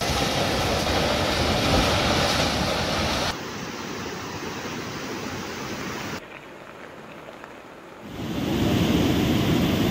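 Rushing floodwater from a swollen muddy river, a steady rush of noise. It drops abruptly about three seconds in and again about six seconds in, then swells back near the end.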